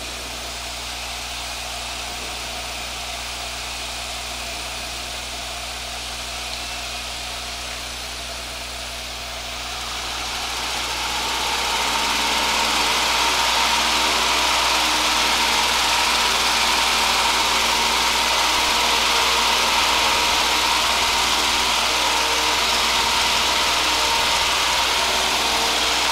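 Piper Pacer's 135-horsepower four-cylinder aircraft engine heard from inside the cabin, running steadily at low power, then opened up about ten seconds in to full power for the takeoff and climb-out, where it stays loud and even.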